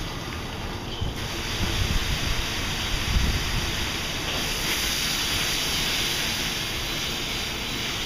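Car-wash offboard high-velocity dryers blowing: a steady rush of air with water being blasted off the car. Low gusts of air buffet the microphone a couple of seconds in.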